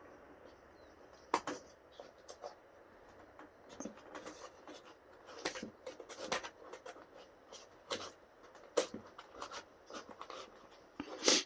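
Irregular sharp clicks and knocks of a KSC Makarov gas-blowback airsoft pistol being handled, about a dozen spread out, the loudest shortly before the end.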